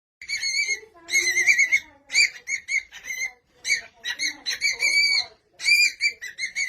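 A parrot whistling a run of high notes, some short and some held about a second with a wavering pitch, broken by brief gaps.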